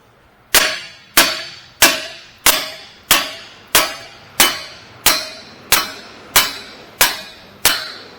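Hammer striking the outer end of a front CV axle shaft to drive it out of the wheel hub splines: twelve evenly spaced metallic blows, about one and a half a second, each with a brief ring. The axle is stuck in the hub.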